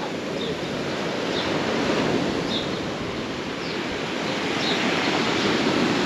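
Black Sea surf breaking on a pebble beach: a steady wash of waves that swells gently.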